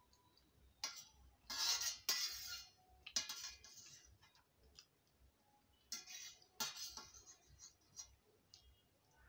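Metal spoon scraping and clinking against a large stainless steel plate while scooping up the last food, in several short bursts with a metallic ring, the loudest about one and a half to two and a half seconds in and again around six to seven seconds in.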